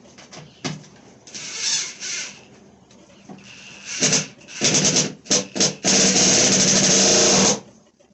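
Cordless drill driving screws into a wooden 2x4 door handle: a few short trigger pulls, then one steady run of about a second and a half that stops suddenly. Softer scraping and handling noises come before it.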